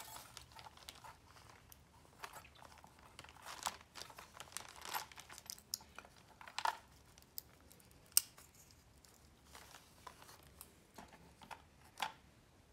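Clear plastic resealable bag crinkling in short, irregular crackles as hands work a lock cylinder inside it.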